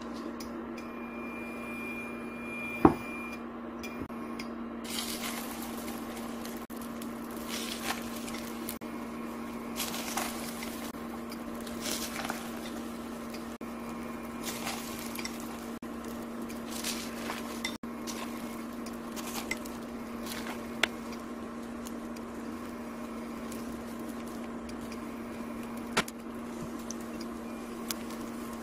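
Egg-coated sausage slices frying in oil in a non-stick frying pan: a crackling sizzle that sets in about five seconds in, with a few sharp taps of chopsticks on the pan later on. A steady low hum runs underneath, and near the start there is a brief high tone and one loud knock.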